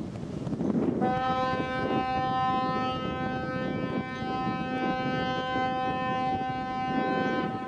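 A ship's horn sounds one long steady blast of about six and a half seconds, starting about a second in, over low wind and harbour noise.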